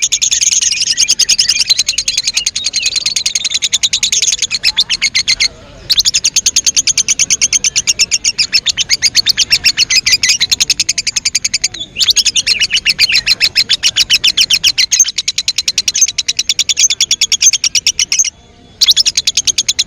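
Lovebird ngekek: a long, very rapid, even chattering trill, high-pitched, broken by brief pauses about five and a half seconds in, around twelve seconds in, and near the end.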